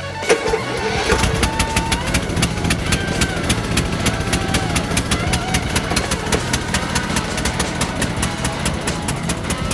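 Lawn tractor engine, fitted with a new carburetor, catching about a third of a second in and then running with a rapid, regular pulsing beat. It runs but does not sound good.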